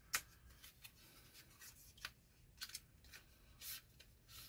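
A small cardboard box being opened by hand: a scatter of faint cardboard ticks and rustles as the flap is worked loose and the box is slid apart, the sharpest tick right at the start.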